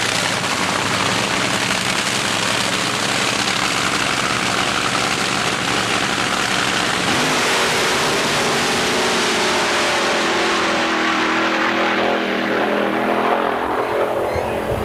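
Drag racing car engine running loud with a harsh, hissy roar. After about seven seconds a steadier, lower engine note comes through and the high hiss fades toward the end.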